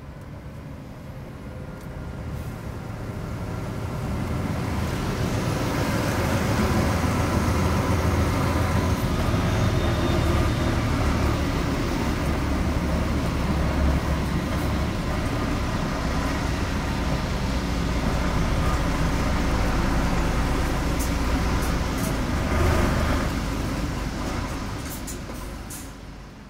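Heavy truck driving slowly, engine running with road noise, heard from inside the cab. It fades in over the first few seconds and fades out at the end, with a few light clicks near the end.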